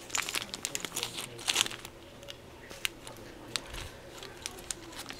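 Clear plastic zip-lock bag crinkling and crackling as it is handled, with a dense run of crackles in the first two seconds, then scattered ones.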